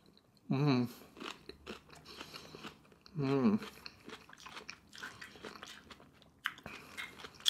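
Close-miked chewing of a crunchy piece of red bell pepper with wet, crackly mouth sounds, with two short hummed "mm"s of enjoyment, one about half a second in and one about three seconds in.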